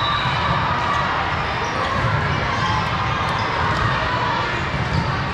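Echoing din of a large sports hall full of volleyball courts: a steady murmur of many voices with scattered sharp volleyball hits and bounces.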